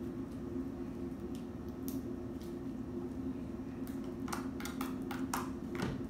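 Homemade slime being pressed and kneaded by hand on a wooden tabletop: scattered faint sticky clicks, then a quick run of wet squishes and clicks in the last two seconds, over a steady low hum.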